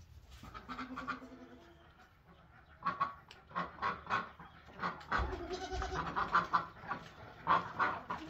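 Farm animals calling: a goat bleats about a second in, then a run of short, repeated bird calls from about three seconds on, thickest in the second half.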